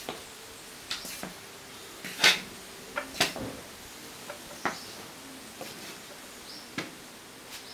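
Scattered light knocks and clicks at irregular intervals over a steady hiss, the sharpest knock about two seconds in, as of a person moving about and handling things.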